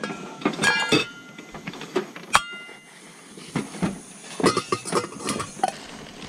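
Stainless steel camp cookware clinking as a pot and plates are handled: several metallic clinks with a short ring, a sharp one about two and a half seconds in and a quick run of them near the end.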